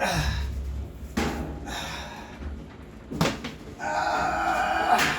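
Knocks and thumps against a washing machine's sheet-metal cabinet as a man climbs onto it, three sharp impacts spread over a few seconds. Near the end comes a squeaky scraping that lasts about a second and a half.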